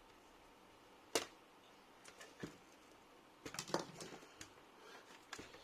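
Sharp clicks and taps of plastic laptop parts being handled as the keyboard deck is opened: one loud click about a second in, a few lighter clicks, then a quick cluster of clicks and rattles near the middle.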